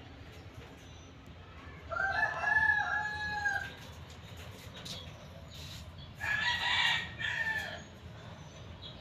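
A rooster crowing twice, each crow lasting about a second and a half, the second about four seconds after the first.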